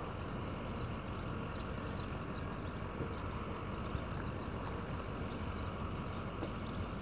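A parked vehicle's engine left idling, a steady low hum with no change in pitch or level.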